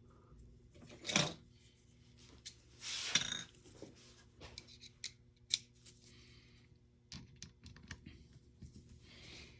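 Small clicks and scrapes of a screwdriver and metal parts being handled while Phillips screws are taken out of an airsoft rifle. There are two louder scraping rustles about one and three seconds in, then scattered sharp ticks.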